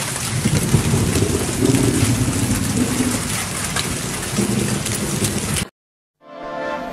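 Hail and heavy rain pelting wet pavement: a dense, steady hiss with scattered small hits and a low rumble underneath. It cuts off abruptly about five and a half seconds in, and a short swelling pitched tone follows near the end.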